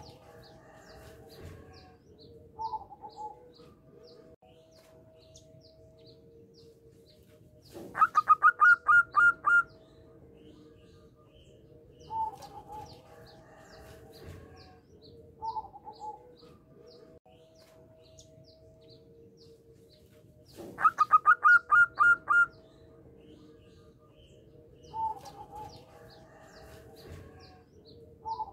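Zebra dove (perkutut) singing twice: each song is a quick run of about ten staccato coos that climb in pitch and then hold, the loudest sound. Shorter single coo notes come between the songs, with faint high chirping underneath.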